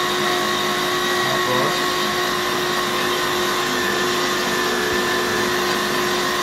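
Electric stand mixer running at medium speed, its wire whisk beating stiff-peak Swiss meringue: a steady motor hum with a constant whine.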